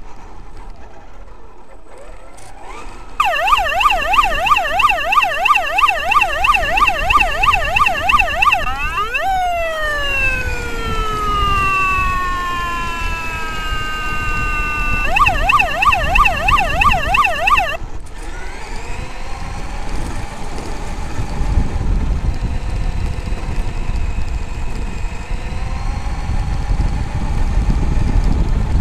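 An electronic siren yelping, its pitch sweeping rapidly up and down, sliding into a few slowly falling tones, then yelping again before it cuts off suddenly. Underneath and after it, the low rumble of the RC monster truck driving over rough ground.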